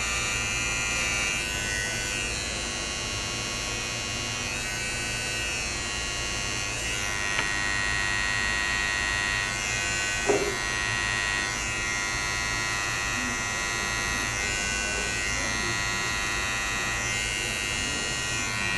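Corded electric hair clippers running steadily while cutting a design into short hair. A brief sharp knock about ten seconds in.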